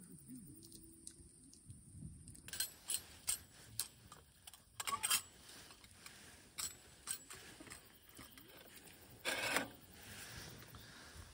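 Light metal clinks and clatter of camp cookware and a wire pot stand being handled on a wooden table, a series of short sharp clicks, with a louder brief burst of noise a little after nine seconds in.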